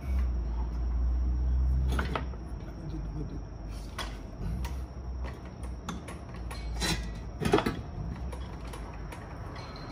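Scattered metal clunks and knocks as a limited-slip differential on a transmission jack is pushed up and worked into its mounts under the car. A low hum fades out about two seconds in.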